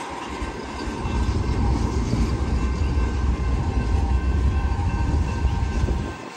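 Freight cars of a manifest train rolling past at close range: a steady, heavy rumble of steel wheels on the rails. The low rumble drops off suddenly about six seconds in.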